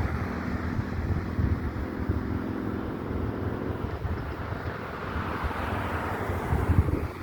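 Truck traffic going by: a steady engine drone for the first few seconds, then tyre and road noise swelling and easing off, with wind buffeting the microphone.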